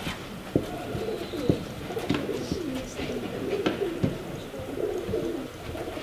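Pigeons cooing over and over, with a few sharp knocks scattered through.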